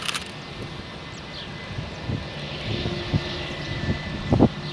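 Airbus A320-232's IAE V2500 turbofan engines running as the airliner rolls out on the runway after landing: a steady rush, joined about two seconds in by a thin steady high whine. A few short thumps come near the end.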